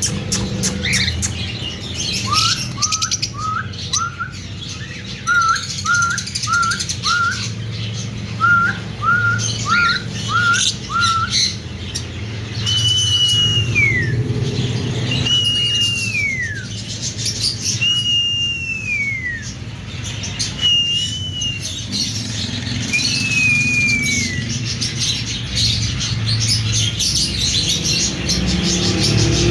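Birds calling: quick high chattering chirps and runs of short upward-flicking notes in groups of four or five, then, from about halfway, five slow falling whistles a couple of seconds apart. A steady low hum runs underneath.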